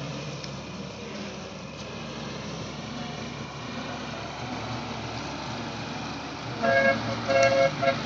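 Combine harvester's diesel engine running steadily, then near the end a horn sounds in several short toots.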